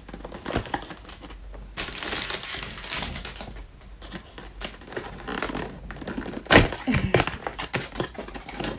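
A cardboard perfume box being handled and opened: rustling packaging with scattered knocks and clicks, the loudest a sharp knock about two-thirds of the way through.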